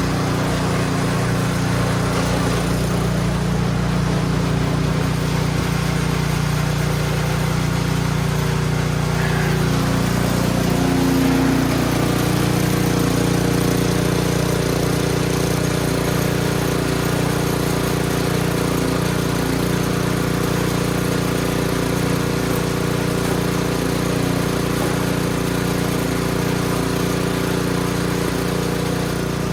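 Husqvarna gas snow blower engine running steadily under load, with a slight shift in its pitch about ten seconds in.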